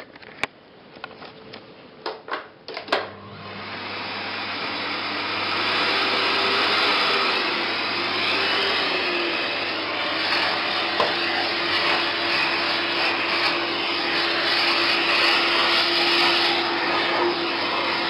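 Small canister vacuum cleaner starting up about three seconds in after a few sharp clicks, coming up to speed and then running steadily, its hose sucking dust and mould out of an old CRT TV's chassis. Its whine wavers briefly and then holds a steady pitch.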